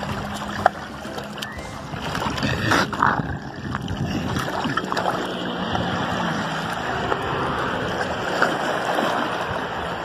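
Water splashing and sloshing as a dog swims and thrashes in shallow water, louder about two and a half seconds in, over a steady rushing noise.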